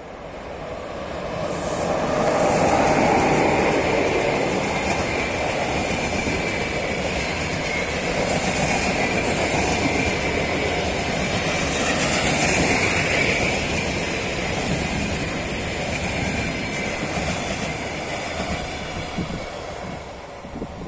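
EP20 electric locomotive and its double-deck passenger coaches passing at speed: the noise swells over the first couple of seconds as the locomotive arrives, then runs steadily as the coaches roll by, and fades near the end. A thin high tone runs over the rolling wheel noise.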